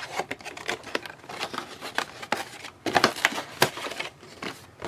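Hands handling trading cards: a run of light, irregular rustles and taps as cards are sorted.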